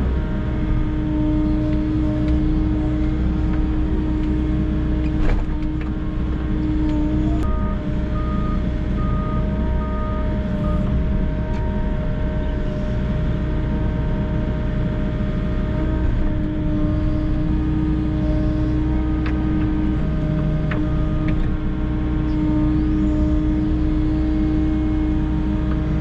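Volvo EC60E compact excavator's diesel engine running under load with a steady whine from the hydraulics as the boom and bucket dig and swing. There are a few sharp clunks, and a brief run of beeps about eight seconds in.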